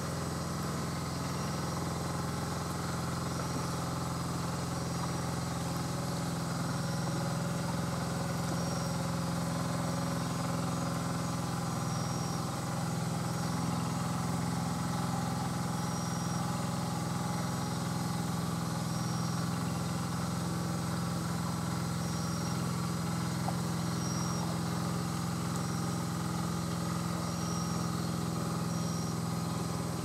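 Engine running at a steady idle, a continuous low hum. A faint, short, high chirp repeats irregularly every second or two.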